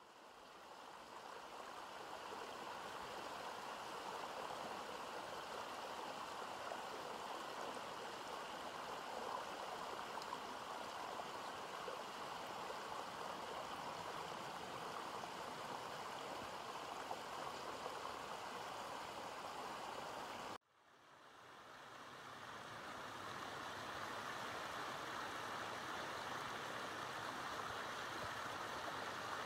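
Shallow mountain stream running over rocks, a steady babble of water. It cuts out suddenly about two-thirds of the way in and fades back up.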